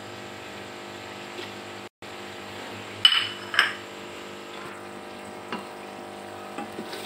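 A wooden spoon knocks twice against a metal pressure-cooker pot about three seconds in, each knock with a short metallic ring, then taps lightly a few more times while stirring the curry. A steady hum runs underneath.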